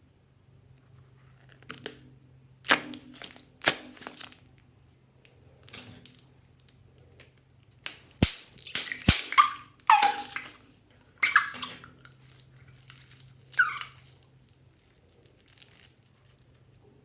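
Slime being squeezed and stretched by hand: irregular crackles and sticky pops, a few with short falling squeaks, over a faint steady hum.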